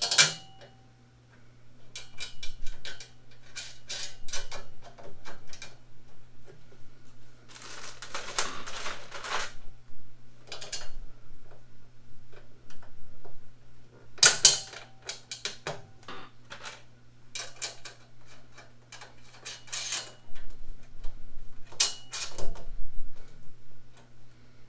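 Small steel bolts, nuts and washers clicking and clinking as they are handled and threaded by hand to bolt steel cart legs onto a steel panel. Longer rattling rustles come about eight and fourteen seconds in, among scattered single clicks.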